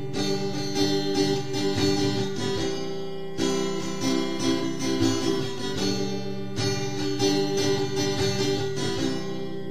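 Strummed acoustic guitar playing the instrumental introduction to a song, before any singing comes in.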